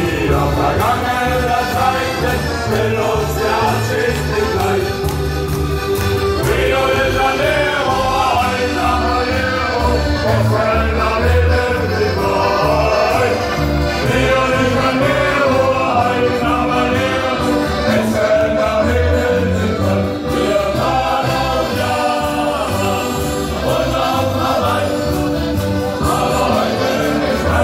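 Shanty choir singing a sea shanty, accompanied by accordions and guitar over a steady bass line.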